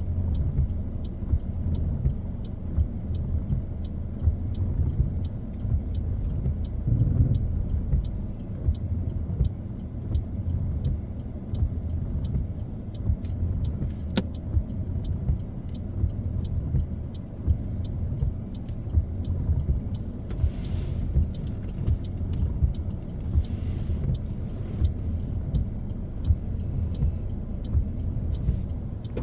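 Car driving on a city street, heard from inside the cabin: a steady low rumble of engine and tyres, with faint regular ticking during the first half and brief hissing swells about two-thirds of the way in.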